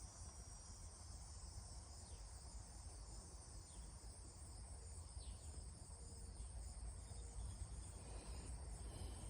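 Cicadas droning steadily in summer heat, a continuous high buzz, over a low rumble, with a few faint short falling chirps.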